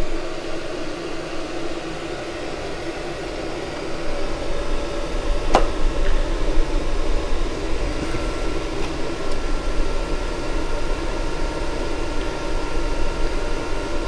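VEVOR diesel air heater running at power level 6, the highest setting its stock ECU allows, its blower fan and burner making a steady whir with a few steady tones, a little louder from about four seconds in. A single sharp click about five and a half seconds in.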